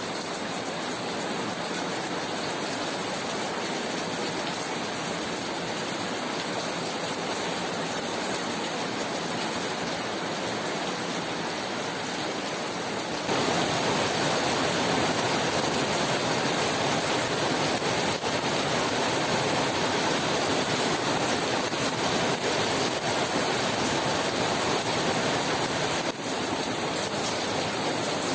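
Steady rainfall, an even hiss with no distinct drops standing out; it grows louder and fuller about halfway through, with a brief dip near the end.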